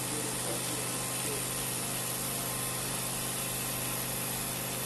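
Steady hiss with a low hum underneath, unchanging throughout, with no distinct stirring or scraping strokes standing out.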